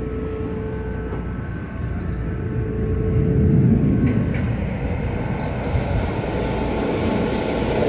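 Interior running noise of a SEPTA Kawasaki light-rail trolley car under way: a steady rumble of wheels on rail and motors. It grows louder about two to four seconds in, then settles.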